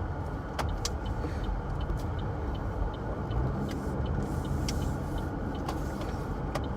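Car interior while driving: steady low rumble of engine and road noise, with a faint, even ticking about two or three times a second from the turn signal and a few sharp clicks.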